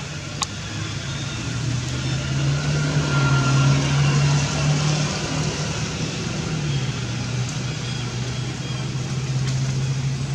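An engine running steadily, swelling a little around three to five seconds in, with a single sharp click about half a second in.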